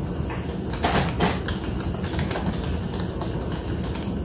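Epson ET-15000 inkjet printer running steadily as it prints an alignment page. A few sharp clicks about a second in, then lighter scattered taps, come from computer keyboard keys.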